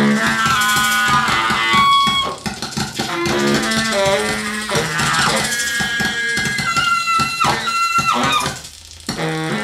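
Free-improvised music for baritone saxophone, turntable and synthesizer: shifting pitched notes laid over clicks and a low held drone. The sound thins almost to nothing for a moment near the end, then comes back in.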